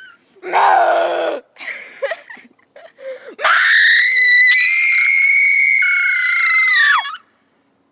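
A girl's voice making deliberate noises: a short loud rough yell about half a second in, then a long, high-pitched scream held for about three and a half seconds that drops in pitch as it ends.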